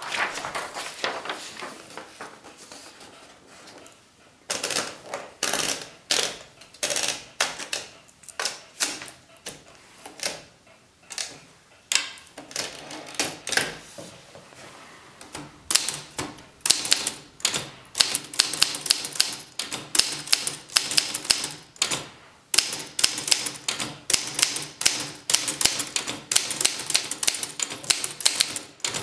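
Olivetti Studio 44 manual portable typewriter. During the first half there are scattered clicks and knocks as a sheet of paper is rolled into the platen. From about halfway in, the keys are typed in a quick steady run, each typebar striking the platen with a sharp clack.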